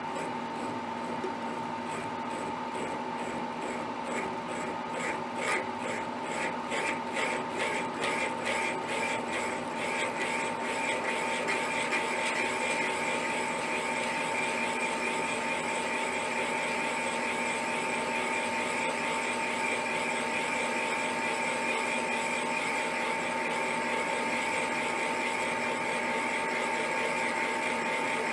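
Milling machine running with a boring head in the spindle, taking a light boring cut in a large hole in a steel vise base: a steady machine whine under the cutting. A regular ticking, about two or three a second, is heard for the first ten seconds or so, then blends into the even cutting sound.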